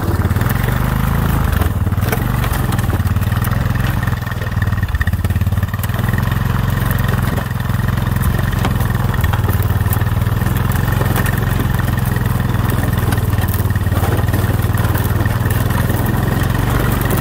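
ATV engine running steadily while riding across lake ice at night, a constant low hum with no revving up or down.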